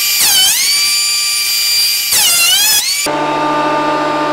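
JET benchtop jointer-planer's motor running with a loud high whine while thicknessing a teak board. Its pitch sags twice as the cutterhead takes load. From about three seconds in it gives way to a lower steady hum.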